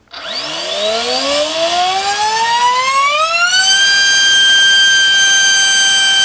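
Turnigy 2836 3200 kV brushless motor spinning a Gemfan 4x4.5 carbon-reinforced nylon propeller on a 4-cell battery, run up from standstill. A loud whine rises in pitch for about three and a half seconds, then holds steady as the motor reaches a constant high speed under load.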